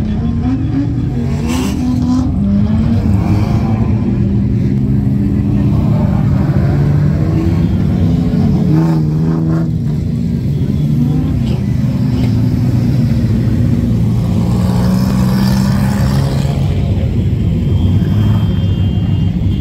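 Speedway race car engine on a dirt track, rising in pitch as it accelerates and falling back as it lifts off, again and again.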